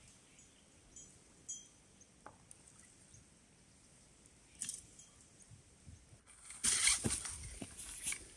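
A small fish being landed on a pole rod. Faint scattered clicks come first, then near the end a louder rough burst of splashing and handling noise lasts about a second and a half.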